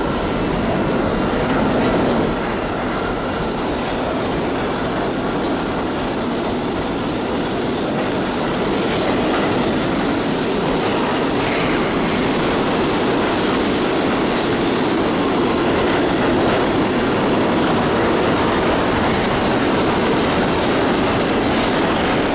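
R-32 subway train pulling into the station, with steady wheel and car noise and rail clatter as it runs along the platform. A high-pitched squeal joins in from about nine seconds in to about sixteen seconds as it slows to a stop.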